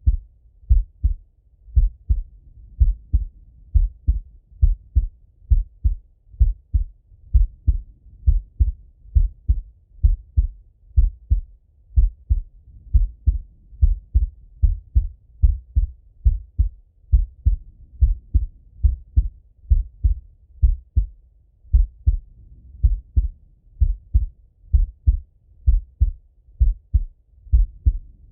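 A man's heartbeat heard through a Littmann stethoscope on his own chest: a slow, steady rhythm of paired lub-dub thumps, deep and muffled.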